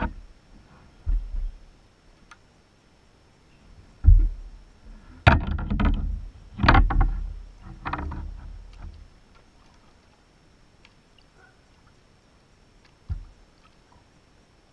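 Knocks and thuds on a kayak: a low thump about four seconds in, then a cluster of sharp knocks and rattles for a few seconds, and one more thump near the end.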